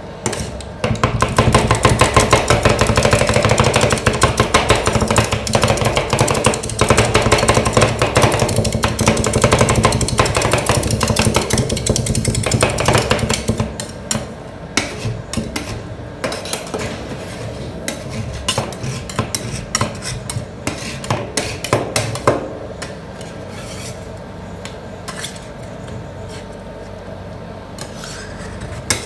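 Two steel spatulas rapidly chopping and tapping on a stainless-steel ice cream roll cold plate, working the freezing ice cream base. After about 13 seconds the fast chopping stops and gives way to slower scraping and scattered taps as the mixture is pushed into a heap.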